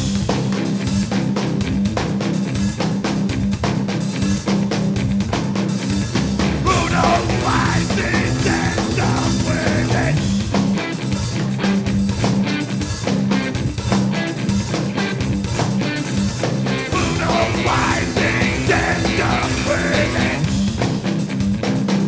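Live rock band playing loudly: electric guitar through a Marshall amp with a full drum kit, a steady, dense wall of sound, with a melodic line rising above it about a third of the way in and again near the end.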